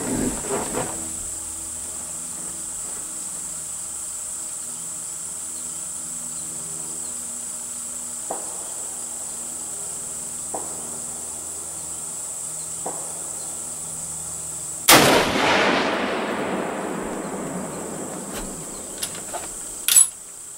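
A single shot from a 7mm Remington Magnum rifle about three-quarters of the way in: a sudden loud crack whose echo fades away over several seconds. A steady high insect drone runs underneath, and a few sharp clicks follow near the end.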